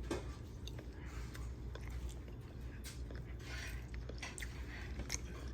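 A person chewing a mouthful of sticky honey lemon chicken, with scattered soft mouth clicks over a low steady hum.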